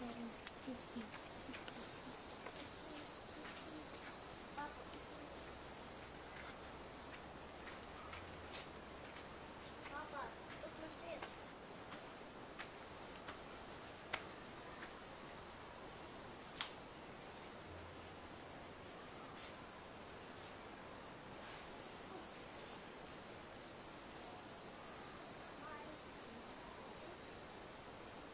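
A steady, high-pitched insect chorus in tropical forest, droning without a break, with a few faint ticks beneath it.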